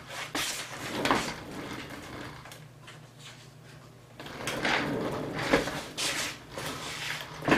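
Rummaging at a workbench while searching for a small part: a run of light knocks, clicks and scrapes of things being moved and handled, with a quieter stretch around three to four seconds in.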